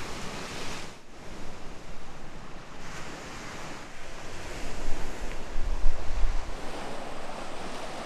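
Sea surf washing and breaking on the shore, with wind gusts rumbling on the microphone about halfway through.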